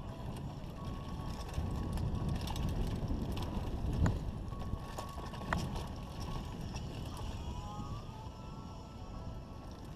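Mountain bike riding over a dirt singletrack: tyres rumbling on dirt and wind on the microphone, with the bike rattling and knocking over bumps, the sharpest knocks about four and five and a half seconds in.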